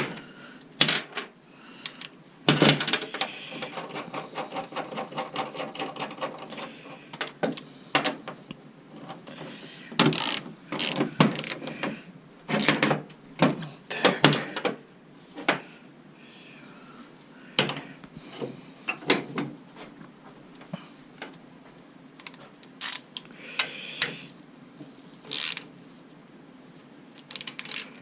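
Ratchet wrench clicking in runs, with scattered sharp metallic clicks and knocks, as the lock nut on a steering tie rod end is tightened.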